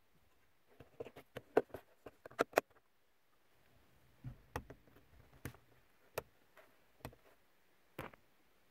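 Plastic clicks and snaps as the clear lens of a car's overhead courtesy light is pressed into its housing. A quick run of clicks about a second in, then scattered single clicks.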